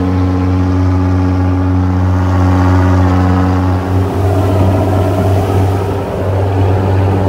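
Boat engine running steadily, a loud, even drone heard aboard a moving boat; about four seconds in the drone turns less even.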